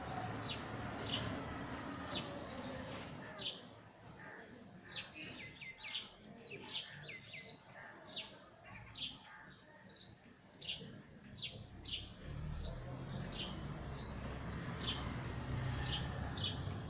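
Sparrows chirping over and over, short sharp high chirps about one or two a second, with a low rumble underneath in the last few seconds.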